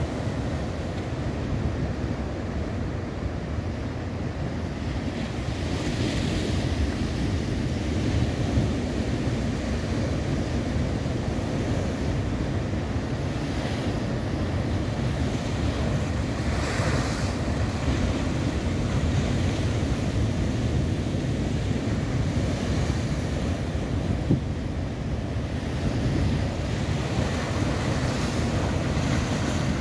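Ocean surf breaking against a boulder shoreline, white water churning and washing through the rocks, with wind rumbling on the microphone. Heavier crashes with a rising hiss of spray come roughly every ten seconds.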